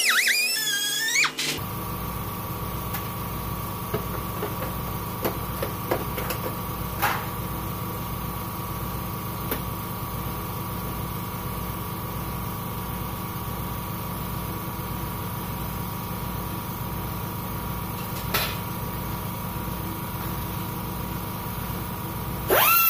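Shop air compressor running steadily with a slow low throb, kicking on suddenly about a second and a half in, typically to refill its tank after the air tool has drawn the pressure down. At the start the air cutting tool's whine winds down; near the end it spins up again with a loud high whine. A few light metal clicks sound in between.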